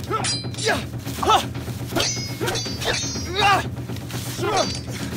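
Sharp fighting shouts (kiai) from sword fighters, one every half second to a second, with brief metallic rings of katana blades clashing in between, over a low steady hum.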